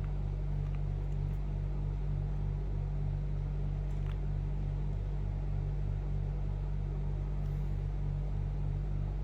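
A steady low hum with a regular pulsing throb of about three beats a second, and one faint click about four seconds in.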